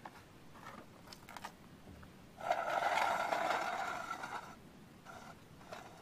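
A metal stove part scraped across a metal plate for about two seconds, a couple of seconds in, after a few light clinks.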